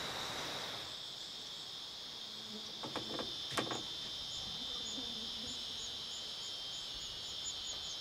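Cicadas droning steadily at a high pitch, with a faint high chirp repeating about three times a second from about halfway. Two sharp clicks a little after three seconds in, from the hut's wooden door latch being worked.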